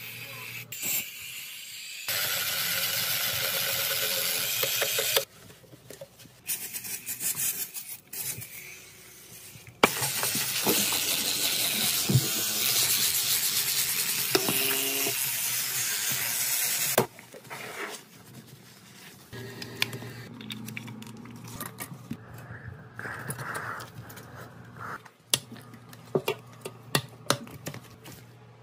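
Toilet being scrubbed and wiped by hand with a sponge: rubbing and scrubbing noises, two long stretches of loud, even hissing, and scattered clicks and knocks.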